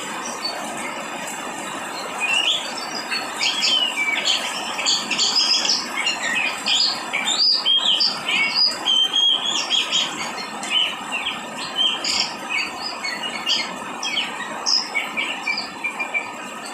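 Steady hiss of falling rain with many small birds chirping and twittering over it, the chirps thickest through the middle.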